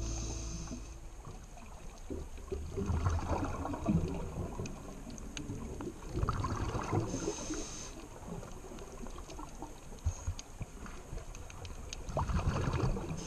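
Scuba diver breathing underwater through a regulator: bursts of exhaled bubbles gurgling every few seconds, with a short hiss of inhalation between them.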